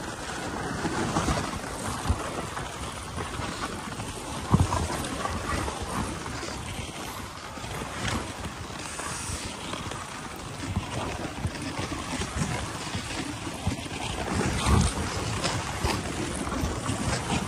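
Dog sled running along a packed snow trail: a steady scraping hiss of the runners over the snow, mixed with wind on the microphone. A couple of sharp knocks come through, about four and a half seconds in and again a few seconds before the end.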